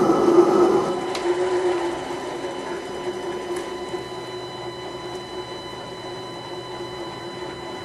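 Mini lathe running in screw-cutting gear, its motor and gear train giving a steady whine. The sound is louder for about the first second, then settles quieter, with a few faint clicks.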